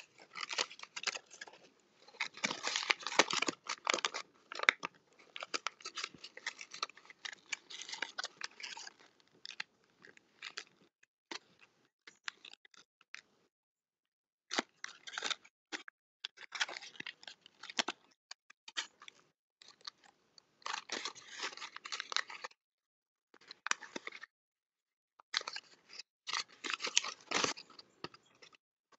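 Folded paper of an origami tessellation crackling and rustling as it is flexed, twisted and squeezed by hand. The crisp crackles and ticks come in irregular spells with a few silent pauses, the longest about halfway through.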